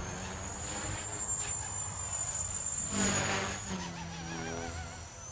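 Blade 230 S V2 electric collective-pitch RC helicopter in flight: a steady high-pitched whine from its motor and rotors, wavering as it manoeuvres and dipping slightly in pitch a little past the middle.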